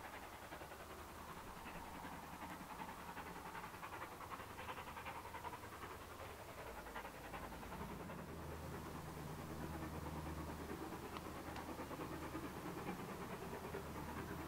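Steam locomotive working in the distance, heard faintly as a rapid run of exhaust beats. About halfway through, a low steady hum joins in and the sound grows slightly louder.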